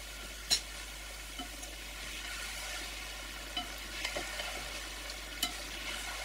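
Carrots and meat sizzling steadily in a cast-iron kazan over high heat while a metal spatula stirs them, with a few sharp clicks of metal on the pot, the loudest about half a second in.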